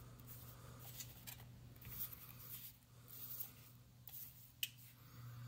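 Faint rubbing and rustling of a bare circuit board being slid by hand across lined notepad paper, with one sharp tap about four and a half seconds in. A low steady hum runs underneath.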